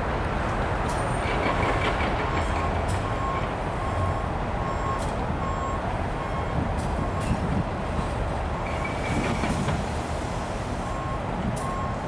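Grade-crossing warning bell ringing in short, evenly repeated strokes about twice a second, over the low rumble of an approaching EMD SD38-3 diesel road switcher, with some wind noise on the microphone.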